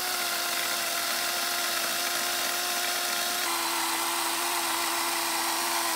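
DeWalt DCCS620 20-volt brushless battery chainsaw cutting through a square wooden post under load: a steady motor whine over the rasp of the chain in the wood. About three and a half seconds in, the sound jumps to another cut and the pitch shifts slightly.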